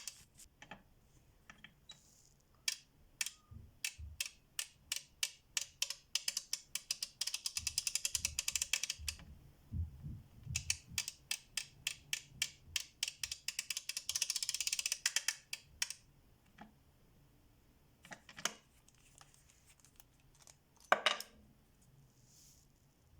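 FELO Ergonic K swivel ratchet clicking as its pawl rides over the gear teeth while the handle is worked back and forth. The clicks come singly and in fast buzzing runs, with a single louder clack near the end.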